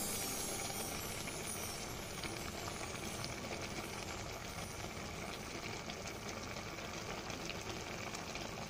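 Thick soy-based braising liquid simmering in a pan of pork, wood ear mushrooms and tofu skin: a steady bubbling hiss with faint scattered pops.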